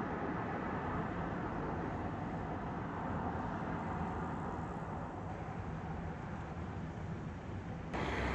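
Steady rumble and hiss of road traffic, changing abruptly near the end.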